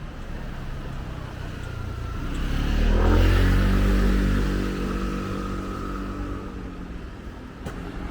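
A motor vehicle drives close past on a street. Its engine and tyre noise swell to a peak about three seconds in, the engine note drops in pitch as it goes by, and then it fades away.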